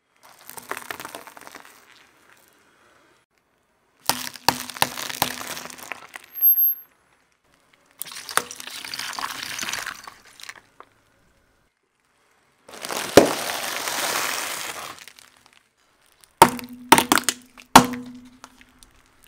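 A car tyre rolling slowly over small brittle and soft objects and crushing them: about five short bursts of crunching and crackling, each with sharp cracks and pops, separated by dead silence. The objects include a block of candy-coated chocolates, gel water beads and plastic toys. The loudest single crack comes about two-thirds of the way through.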